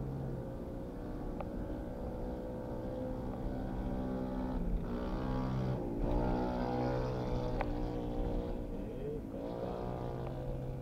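Car engine and road noise heard from inside the cabin while driving, the engine note rising and falling a few times as it accelerates and shifts.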